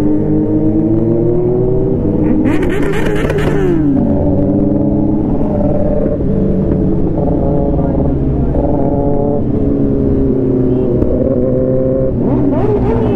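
Several superbike engines running together in group riding, their pitches rising and falling as the riders work the throttle. About two and a half seconds in there is a brief rasping burst. Near the end one engine is revved up and down in quick blips.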